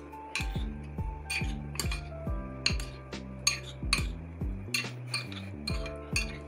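A metal spoon clinking and scraping against a glass bowl while stirring chopped fruit in custard, with short irregular clinks. Background music with a steady beat plays underneath.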